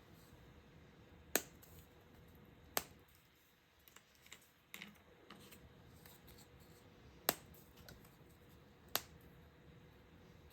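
Four sharp, isolated clicks a few seconds apart over faint room noise.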